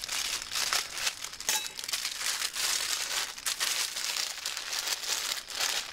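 Thin plastic food bag crinkling and rustling as hands unwrap it, in irregular crackly bursts throughout.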